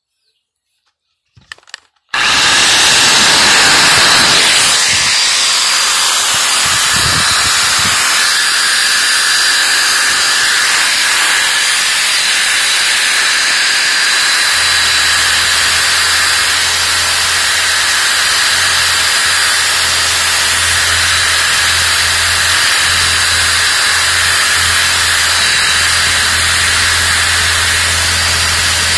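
Sawzall reciprocating saw switching on about two seconds in and running steadily at full speed, a wire brush tie-wrapped to its 12-inch blade scrubbing against a block of solid styrofoam and shredding it into beads. A few faint clicks come before the saw starts.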